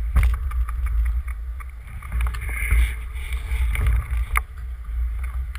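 Low, steady wind and handling rumble on a bike-mounted action camera rolling slowly among other riders, with scattered clicks and knocks.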